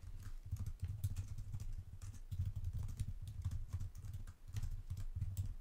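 Typing on a computer keyboard: an irregular, quick run of key clicks with soft low thumps.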